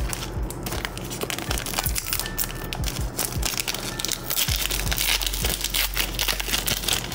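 Foil Pokémon booster pack wrapper crinkling and crackling as it is handled and torn open by hand, a dense run of small crackles, over background music.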